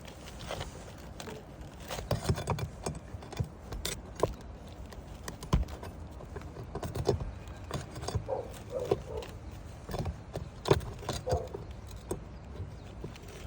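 Irregular knocks, taps and scuffs of hands-on work on a shingle roof, with a few heavier thumps.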